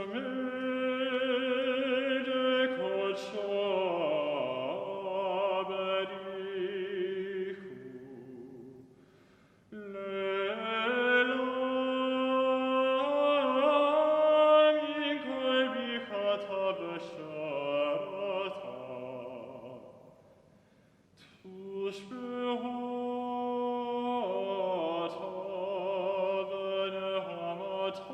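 Singing in long held phrases, three of them, with short breaths between them about 9 and 20 seconds in.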